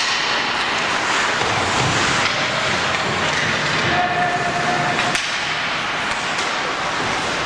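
Ice hockey rink during play: a steady, reverberant din of the game, with a sharp crack right at the start and another about five seconds in.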